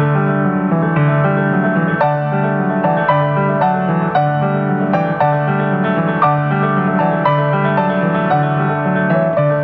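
Instrumental piano music: a flowing line of notes over low held chords.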